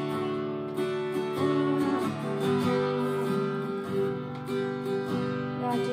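Acoustic guitar strummed slowly, each chord ringing on, changing chord about two seconds in.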